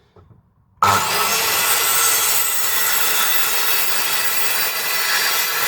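Guild 1400 W circular saw with a 24-tooth blade cutting through a length of 85 by 35 mm timber. The loud cutting noise, with a steady motor whine in it, starts suddenly about a second in.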